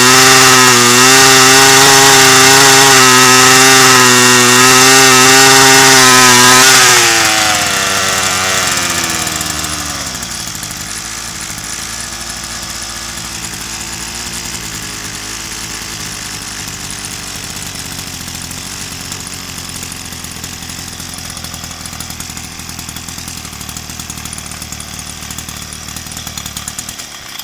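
Two-stroke brush cutter engine, fitted with a separate canister exhaust that is being tested, running at high revs. About seven seconds in the revs fall, and it then idles steadily and more quietly until it stops abruptly at the end.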